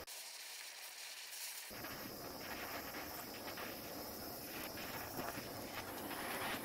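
Hand-held propane torch burning with a steady hiss as its flame heats a brass radiator seam for soldering. The lower part of the sound comes in about a second and a half in.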